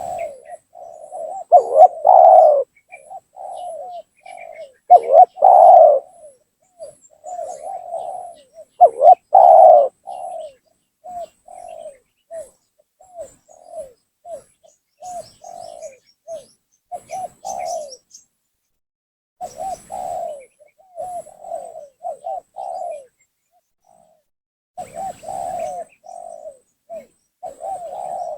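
Spotted dove (tekukur) cooing over and over in short phrases, the kind of lure call used to draw in a rival dove. The three loudest coos come in the first ten seconds, with softer phrases after.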